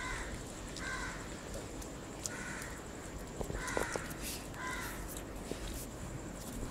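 Short animal calls repeated about five times, roughly once a second, each brief and evenly spaced, with a few faint clicks between them.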